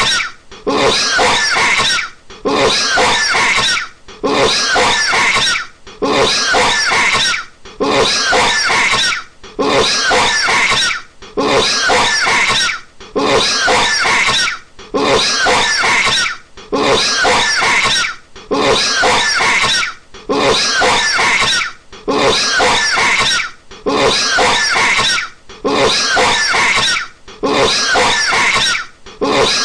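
A man's harsh, rasping coughing fits, each about a second and a half long. They repeat at an even pace, about one every two seconds, like a looped recording.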